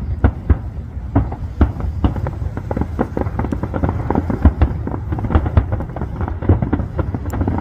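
Fireworks display: aerial shells bursting in rapid succession, a dense, continuous string of overlapping bangs with no pause.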